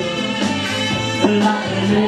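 Music: a man singing into a microphone over an instrumental backing, holding a long note through the second half.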